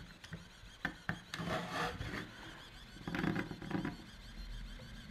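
Handheld 3D pen laying filament, its hot nozzle rubbing and scraping along a ribbed plastic part, with a few light clicks.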